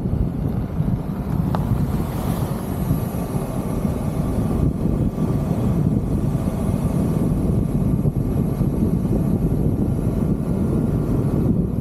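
Steady low rumble of a car driving on a gravel road, picked up by a microphone mounted on the car's roof, with wind buffeting the microphone.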